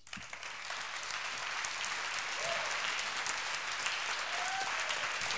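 Audience applause, starting suddenly and holding steady.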